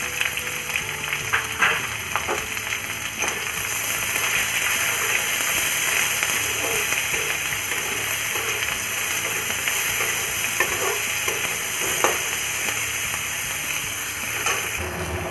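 Chopped onions sizzling as they fry in hot oil in a kadhai, stirred with a steel spatula that now and then scrapes and taps against the pan.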